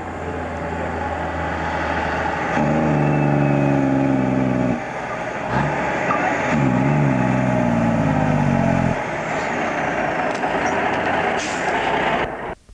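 Diesel engine of a loaded logging truck pulling hard as it approaches. The engine note breaks off briefly about five seconds in, then comes back rising as the truck pulls again. The truck passes close, and the sound cuts off suddenly just before the end.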